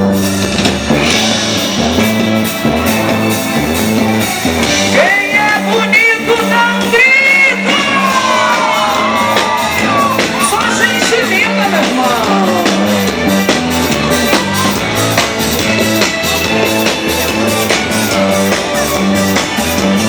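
Live band playing amplified music with a steady beat and held keyboard chords, with shouting and whooping voices over it, loudest in the middle.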